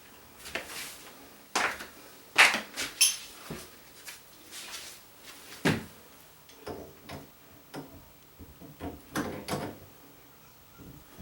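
Scattered knocks and clicks of hard objects being handled, irregular and about a dozen in all, the loudest about two and a half seconds in.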